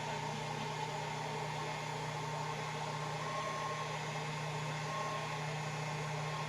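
Hair dryer running steadily at a constant pitch, a continuous whooshing hum with no breaks.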